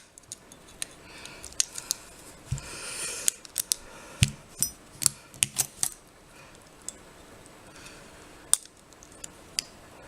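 Irregular sharp metallic clicks and a brief scrape of a small wire lock pick being twisted and worked inside a four-lever padlock, as the stuck pick is freed from the lock.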